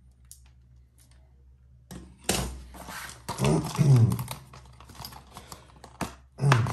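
Clear plastic lure box, holding a Yo-Zuri Crystal 3D Minnow Deep Diver, handled and turned over: a dense run of plastic clicks and knocks that starts about two seconds in.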